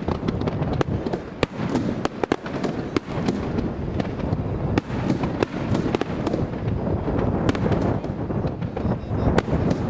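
Fireworks bursting in quick, irregular succession, many sharp bangs and crackles a second, over heavy wind buffeting on the microphone.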